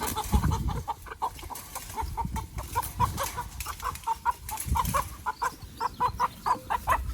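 Chickens clucking in short, quick calls, several a second, busier in the second half, with a few low thumps underneath.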